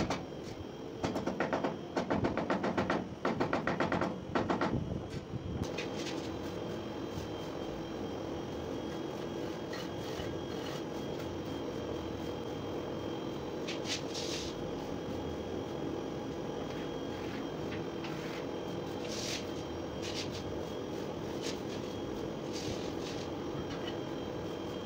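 Rapid, rhythmic scraping for about the first five seconds as a straightedge bar is worked back and forth across a sand-and-cement mortar bed. After that a steady mechanical hum carries on, broken a few times by short scrapes of a trowel on the mortar.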